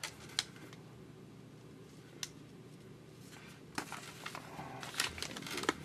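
Sheet of printed letter paper being handled and creased for an origami box: a few sharp paper crackles, one about two seconds in, then a busier stretch of rustling and crackling near the end as the piece is turned over and pressed.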